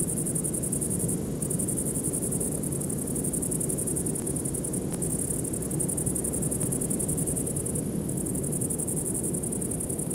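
High, steady trilling of insects in a continuous chorus, broken by a few short gaps, over a low, even rumble.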